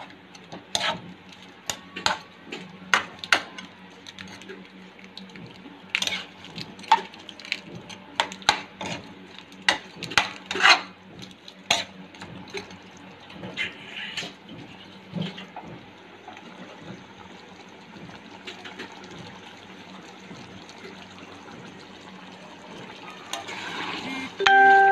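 A metal spoon clinking and scraping against a pan while stirring chicken in oyster sauce, over a steady hiss of the sauce cooking. The clinks come thick and fast for the first dozen seconds, then mostly the cooking hiss remains, with a short squeak near the end.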